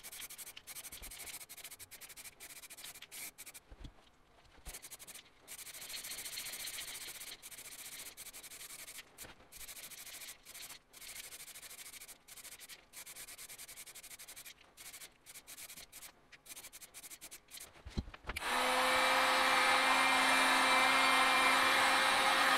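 Aerosol spray can hissing quietly in short bursts as it sprays silver paint onto a brake booster. About eighteen seconds in, a heat gun switches on and runs with a steady loud blowing and a fixed motor hum, the loudest sound here.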